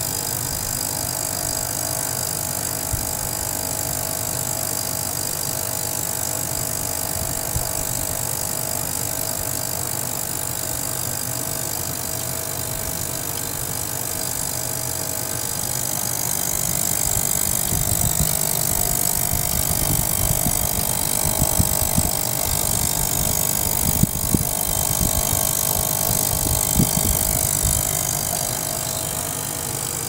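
Small tabletop ultrasonic cleaner running with measurement probes in its water bath: a steady buzzing hum with hiss. About halfway through it gets louder, with irregular low rattles and knocks.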